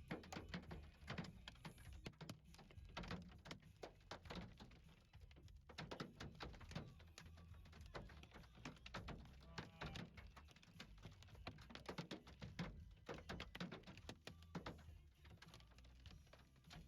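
Hailstones striking a hard surface, heard as a faint, irregular patter of sharp ticks, several a second.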